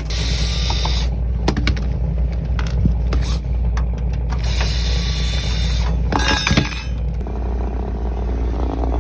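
A refrigerator compressor running with a steady, rough low hum, the weird noise that the technician takes as a sign the compressor needs replacing. Scattered knocks and scraping come from work close behind the fridge.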